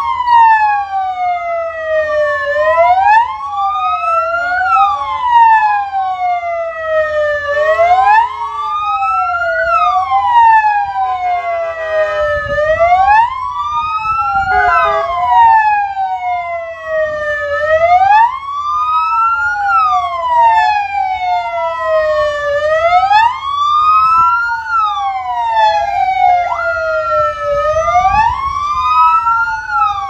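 Several ambulance sirens wailing at once, their pitches rising and falling out of step with each other, each sweep taking about two to three seconds.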